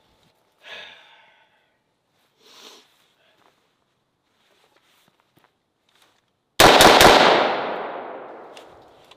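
AR-style rifle firing a rapid burst of about four shots about two-thirds of the way in, the report echoing and fading away over a couple of seconds.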